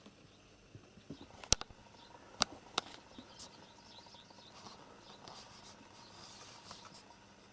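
A few sharp clicks and light scuffling. The loudest click comes about one and a half seconds in, with two more in the following second and a half, then softer scattered ticks and rustling.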